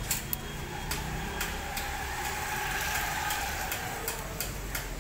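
Light, irregular metallic clicks of the small fittings on a Hero Splendor motorcycle's rear brake rod and brake arm as they are handled and fitted by hand, over a steady low background hum, with a faint drawn-out tone swelling and fading in the middle seconds.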